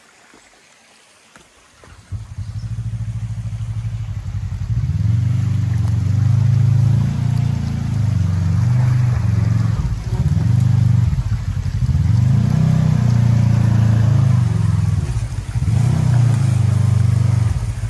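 Kawasaki Teryx KRX 1000 side-by-side's parallel-twin engine crawling over creek-bed rock ledges, its revs swelling and dropping again and again as the driver works the throttle over each obstacle. The engine comes in about two seconds in, after a quiet start.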